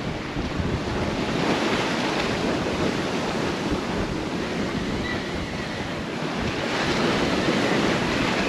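Wind buffeting the microphone over water rushing along the hull of a sailboat under sail at about 7 knots: a steady, even rush that swells a little near the end.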